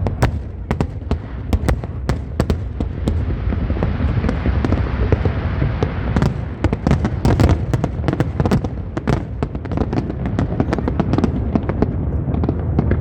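Fireworks display: a rapid, dense run of sharp bangs and crackles over a continuous low rumble, with a thicker crackling swelling about four to six seconds in.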